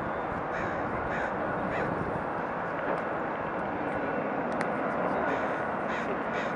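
Distant roar of a Boeing 777-200ER's Rolls-Royce Trent 800 engines at takeoff thrust during the takeoff roll, a steady rushing noise growing slightly louder. Over it a bird gives short calls, three in the first two seconds and a few more near the end.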